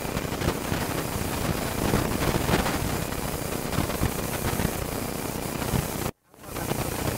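Wind and road noise from filming out of a moving vehicle: a steady rushing hiss with low, rumbling buffets on the microphone. It cuts off abruptly about six seconds in, then fades back up.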